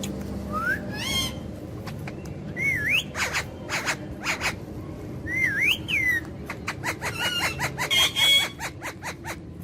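Pet parrot whistling and chirping: a few sliding, wavy whistles with sharp clicks between them, then a run of harsher calls near the end.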